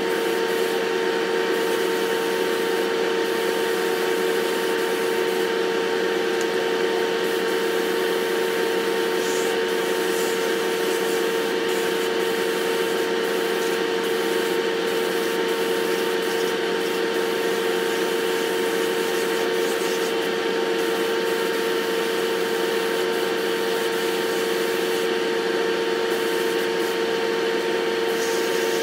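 Paint booth ventilation fans running with a steady, loud drone and hum, with the hiss of a paint spray gun on top that drops back briefly several times as the trigger is let off.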